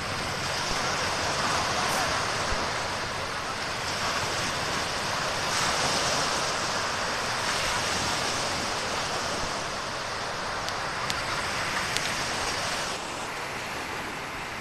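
Small waves breaking and washing onto a sandy beach, a steady hiss of surf mixed with wind on the microphone; the hiss softens a little near the end.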